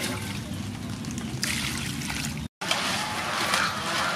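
Water trickling and sloshing in an aluminium basin as live rice crabs are washed by hand, with small clicks of shells and hands against the bowl. The sound cuts out for a moment about two-thirds through.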